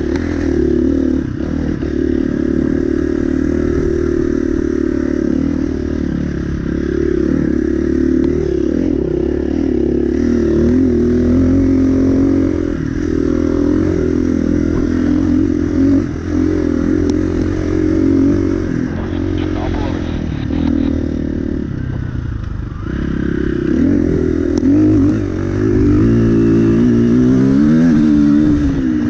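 KTM enduro dirt bike's engine running as it is ridden, revs rising and falling with the throttle, with a couple of brief drops where the throttle is shut and rising revs near the end.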